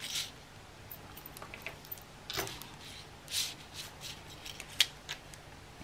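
Paper and small craft tools being handled on a tabletop during stenciling: soft rustles, scuffs and light taps, scattered a second or so apart, with one sharp click near the end.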